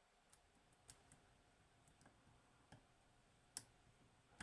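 Near silence broken by a few faint, sharp metallic clicks of a flag pick probing the pins of a DOM IX 6KG dimple lock, the clearest near the end.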